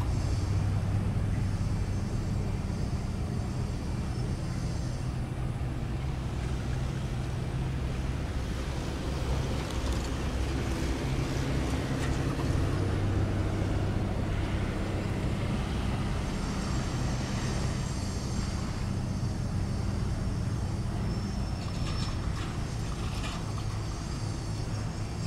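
Jet airliner engines running with a steady low hum.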